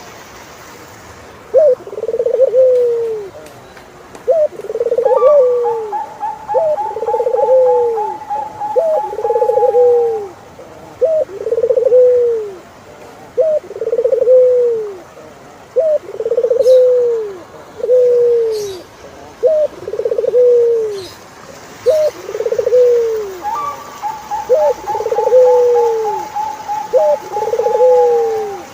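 Turtledoves cooing, a two-part phrase of a short note and a longer falling coo repeated about every two seconds. Twice a higher, drawn-out trilling call runs over the coos for several seconds, falling slowly in pitch.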